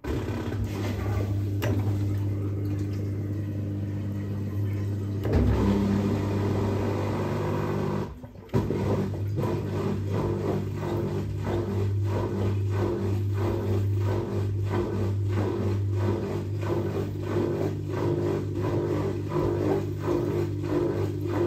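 Fisher & Paykel WL8060P1 front-loading washing machine starting up again after a pause in its cycle: a sudden steady hum, joined about eight seconds in by a regular beat of about two strokes a second.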